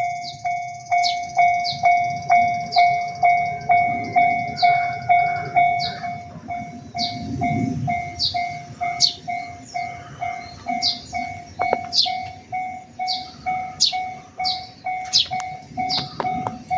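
Japanese railway level-crossing electronic warning bells ringing in a steady repeating ding, about two strikes a second, from more than one bell unit slightly out of step. A soft low rumble swells and fades under the bells around the middle.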